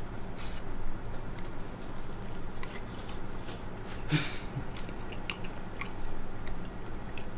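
A man biting into and chewing a fried chicken drumstick coated in sriracha sauce: soft wet mouth clicks and chewing noises, with a short breath about four seconds in.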